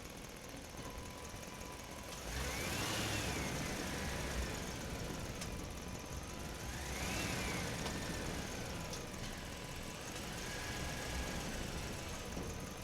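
Truck driving in a parking structure: a steady engine sound swells louder twice, about four seconds apart, each time with a whine that rises and then falls in pitch.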